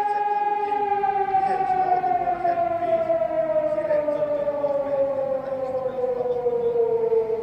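Emergency alert siren: a tone sliding slowly and steadily down in pitch, with a second, lower tone fading out a few seconds in.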